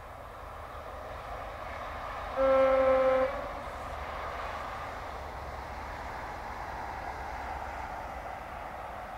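HST power car of Network Rail's New Measurement Train sounding its horn once, a single steady note lasting about a second. Under it is the steady rushing noise of the train running past, which grows and is loudest near the end.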